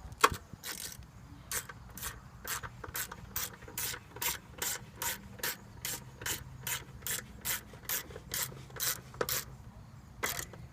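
A ratchet clicking in an even rhythm, about two and a half clicks a second, as a screw is driven back in. It is preceded by a sharp knock just after the start and stops about a second before the end.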